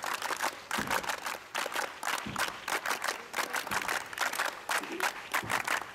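A group of people clapping their hands together, many quick claps a second in an uneven rhythm, with a few heavier strokes among them.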